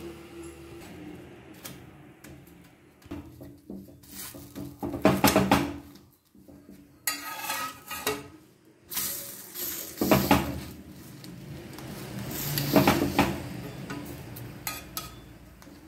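Steel spatula scraping and knocking against a cast-iron dosa tawa in repeated bursts, as a thin crepe is rolled up and turned on the pan.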